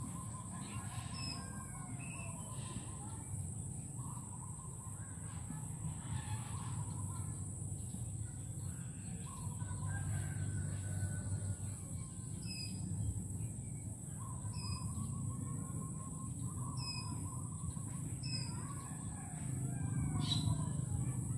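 Several birds calling: short high chirps every second or two and longer held notes lower down, over a low steady rumble.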